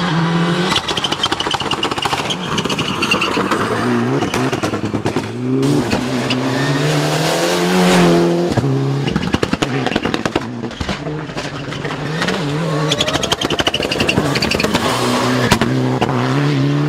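Simulated car engine sound from a Tamiya TT-02 radio-controlled car, idling and repeatedly revving up and dropping back, with many sharp clicks and crackles mixed in.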